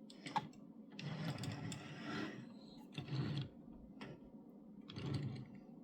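Small die-cast 1:64 pickup and enclosed car hauler being rolled back and forth on a table, their little wheels whirring faintly in several short pushes, after a light click near the start.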